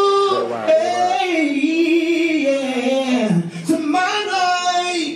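One voice singing long, held notes that slide slowly up and down in pitch.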